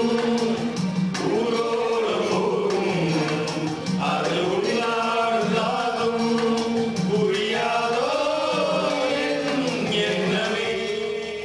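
Several men singing a melody together into a handheld microphone, with long held notes that slide up and down.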